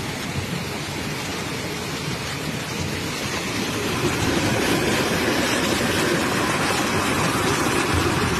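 Muddy floodwater rushing down a street in a fast torrent from a cloudburst flash flood: a loud, steady rushing that grows louder about four seconds in.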